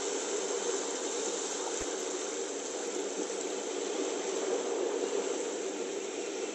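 Steady rushing of ocean surf washing against coastal rocks, with no distinct events.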